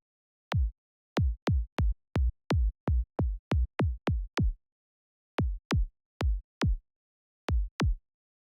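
Synthesized psytrance kick drum, made in BazzISM, triggered on its own again and again: each hit a sharp click that drops quickly into a deep thump. About a dozen hits come in an uneven run, then after a pause a few more, and two near the end.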